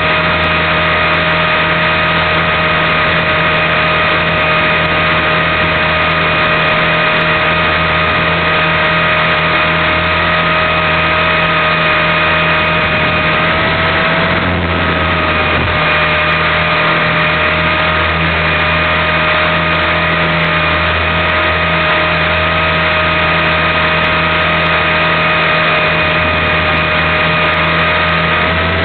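Align T-Rex 450 Pro electric RC helicopter flying: the steady high whine of its brushless motor, gears and spinning rotors over a low hum, with a brief wobble in pitch about halfway through.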